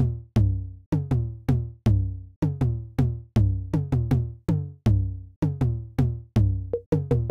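Electronic music: a drum-machine beat of sharp hits, each carrying a deep bass tone that fades quickly, in an uneven rhythm of two to three hits a second.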